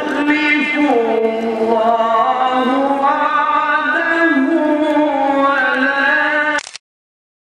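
A solo voice chanting a long, ornamented melody with slow pitch slides and held notes. It cuts off suddenly about six and a half seconds in, leaving a brief gap of silence.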